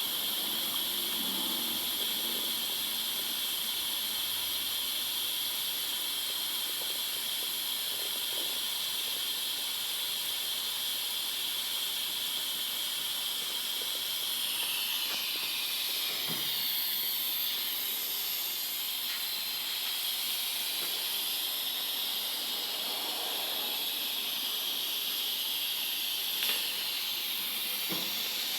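Small steam whistle on a live-steam model Quarry Hunslet locomotive blowing continuously: a high, hissy whistle tone. The pitch holds steady for about the first half, then wavers and rises a little as the steam flow changes.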